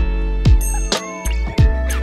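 Background music with a steady beat: a heavy kick drum about twice a second over a deep sustained bass, with sharp percussion ticks and a synth tone gliding down near the middle.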